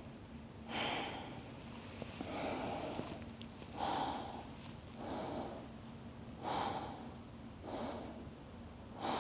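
A woman breathing slowly and audibly in and out, a soft hissing breath about every second and a half, paced deep breathing held for a count of six breaths.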